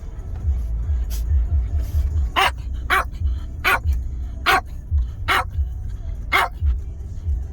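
A dog barking: about six sharp single barks, roughly one a second, starting about two seconds in. Under the barks runs a low, gusting rumble of wind on the microphone.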